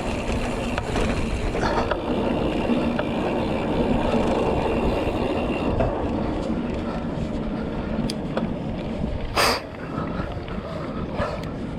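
Mountain bike riding along a dirt trail: steady rumble of wind and tyres rolling over the ground, with sharp knocks from the bike rattling over bumps, the loudest about nine and a half seconds in.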